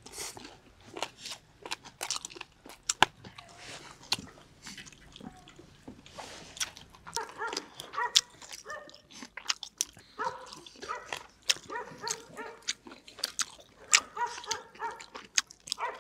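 Close-miked eating: biting, chewing and crunching of food in quick wet clicks. From about halfway there are repeated short high-pitched whines.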